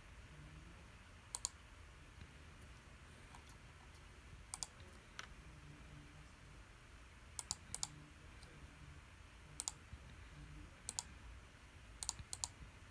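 Scattered sharp clicks, about a dozen, several coming in quick pairs, over faint low background noise.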